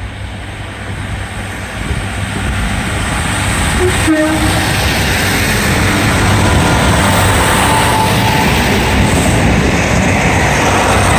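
Northern Class 150 Sprinter diesel multiple unit pulling out of the station and passing close by. Its underfloor diesel engines and wheels make a steady low rumble that builds over the first few seconds and then holds as the carriages go past. There is a single sharp knock about four seconds in.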